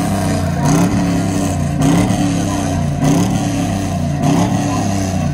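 Truck engine being revved over and over, its pitch rising and falling about once a second on top of a steady low rumble.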